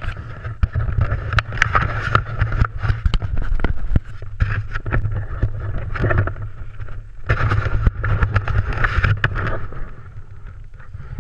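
Wind buffeting the action camera's microphone as a heavy low rumble, mixed with many sharp clicks and rustles. It eases off about ten seconds in.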